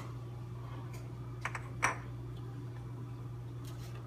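A few light clicks and taps from kitchen containers and utensils being handled, over a steady low hum.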